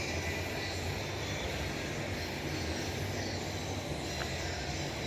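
Small lawnmower engine running at a steady speed.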